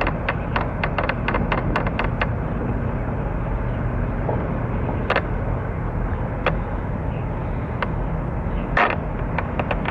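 Steady low rumble of outdoor background noise, with scattered sharp clicks: many in the first two seconds, then a few, and a louder one near the end.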